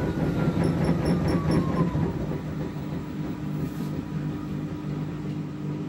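Samsung front-loading washing machine running: a steady low motor hum with a pulsing rumble, over which a drum-motor whine falls in pitch during the first two seconds as the drum slows.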